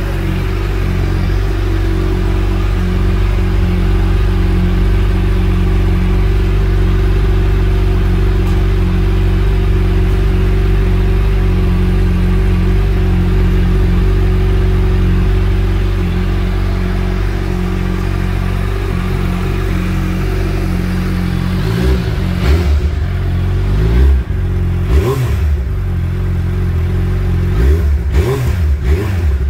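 2022 Suzuki Hayabusa's inline-four engine idling steadily, then revved in a series of short throttle blips over the last seven seconds or so, each rising and falling in pitch.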